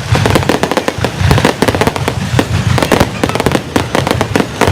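Fireworks going off in a dense, unbroken string of loud bangs and crackles, many overlapping each second.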